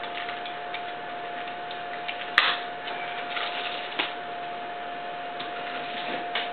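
Handling of a 1:50 scale die-cast excavator model with metal tracks: small ticks and clicks, with a sharp knock about two and a half seconds in and another about four seconds in, over a steady high hum.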